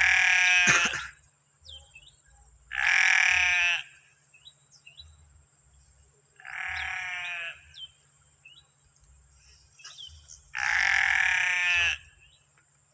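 An animal bleating: four separate calls, each about a second long and a few seconds apart, with a wavering pitch. A faint steady high tone runs underneath.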